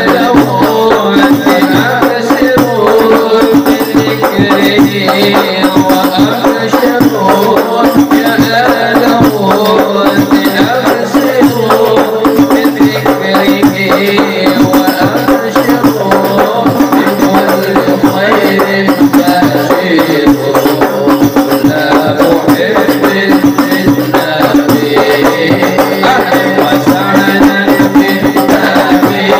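Al Habsyi-style sholawat: a group chanting Arabic devotional verses over a steady beat of hand-struck frame drums.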